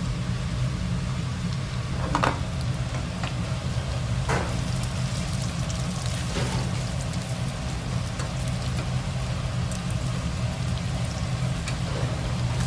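Food sizzling and crackling in hot oil over a steady low hum, with a few brief knocks about two, four and six seconds in.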